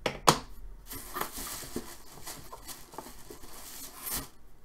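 Two sharp knocks, then about three seconds of paper rustling and crinkling as hands dig through the packing paper inside a cardboard box.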